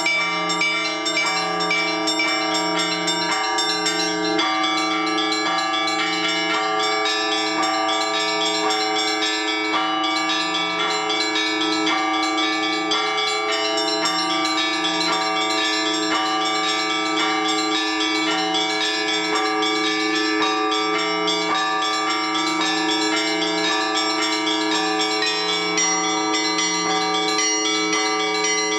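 Russian Orthodox church bells rung by a bell-ringer, calling to the all-night vigil. It is a continuous peal with a low bell humming steadily beneath many smaller bells struck over and over.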